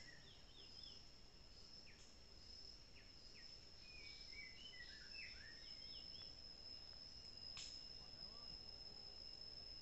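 Faint forest ambience: a steady high-pitched insect drone, with a few short bird chirps about four to five seconds in and a single sharp click near the end.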